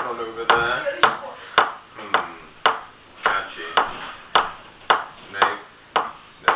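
A metal spoon tapped at a steady beat, a sharp metallic tick about twice a second, keeping time for voices singing rhythmically between the ticks.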